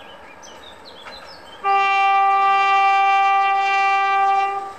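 Horn of an SM42 diesel shunting locomotive: one long, steady, single-tone blast of about three seconds, starting about a second and a half in, sounded as the train approaches the station. Birds chirp briefly before it.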